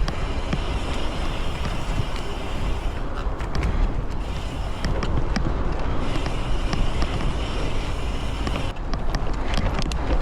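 A mountain bike ridden fast along a wet dirt forest trail: steady wind buffeting on the microphone and tyre rumble, with scattered sharp clicks and rattles as the bike jolts over roots, more of them a few seconds in and near the end.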